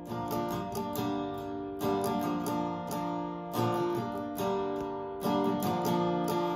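Small acoustic guitar strummed in a steady rhythm, repeating a chord pattern with a stronger accented strum about every second and a half.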